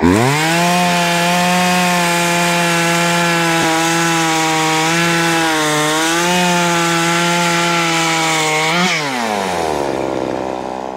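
Poulan Pro two-stroke chainsaw revved up to full throttle and cutting through a log, its pitch sagging slightly now and then under load. About nine seconds in the throttle is released and it drops back to idle.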